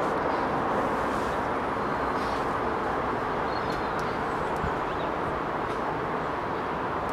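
Steady outdoor background noise with no voices, and a few faint high chirps.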